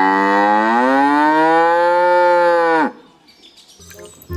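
A cow mooing: one long moo of about three seconds that drops in pitch as it ends. Music starts near the end.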